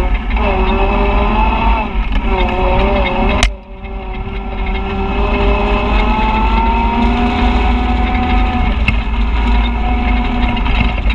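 Side-by-side UTV engine running under throttle, its pitch wavering, then a sharp click and a brief drop in the engine sound about three and a half seconds in before the note climbs steadily again as it accelerates. A heavy low rumble of wind on the microphone runs underneath.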